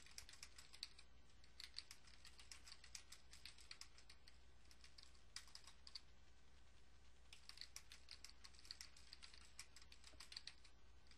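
Faint typing on a computer keyboard, with runs of quick keystrokes broken by short pauses, over a steady low hum.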